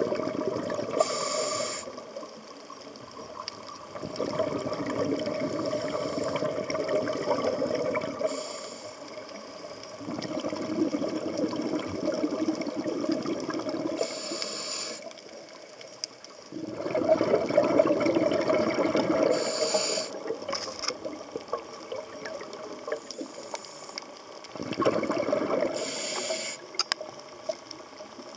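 Scuba diver breathing through a regulator underwater: a short hiss on each inhale, then a longer, louder rush of exhaled bubbles, repeating about every five or six seconds.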